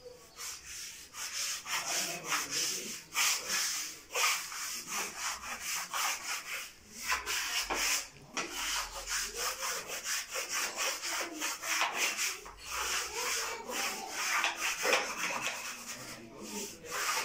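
Wallpaper being smoothed onto a wall with a hand smoothing tool: quick, repeated scratchy rubbing strokes across the paper, with brief pauses about four and eight seconds in.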